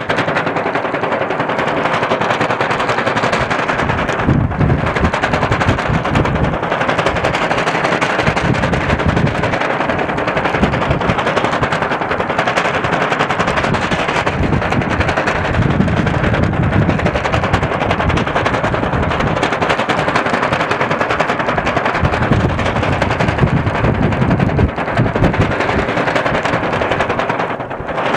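Strong, gusty wind buffeting the microphone in a continuous, loud rattling roar that surges and eases in gusts.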